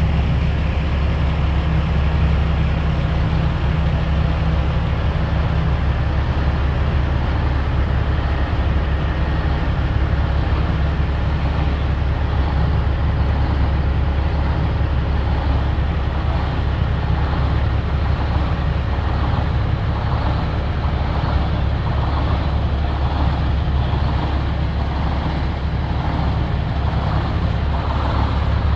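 Heavy diesel truck engine idling: a steady low rumble.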